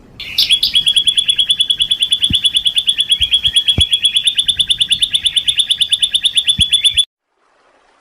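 A songbird's long, rapid trill: a steady run of high, same-pitched notes at about nine a second, held for nearly seven seconds and then cut off abruptly.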